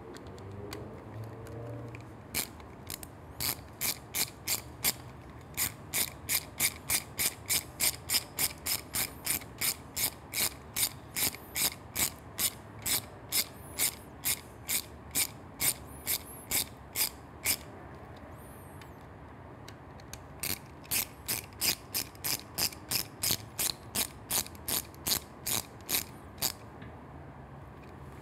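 Ratcheting screwdriver clicking in an even rhythm, about three clicks a second, as a screw is driven in. It stops for about two seconds a little past the middle, then clicks on again.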